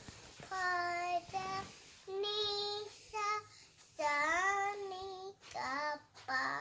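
A young girl singing wordlessly into a toy microphone, in several short phrases of long held notes with brief pauses between them, her pitch sliding up and down.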